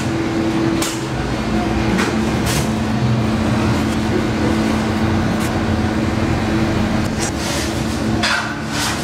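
Steady mechanical hum with two constant low tones, with short scratchy rustles now and then.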